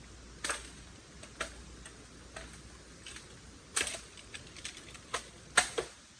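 Irregular sharp clicks and knocks, about a dozen over six seconds, with the loudest pair near the end.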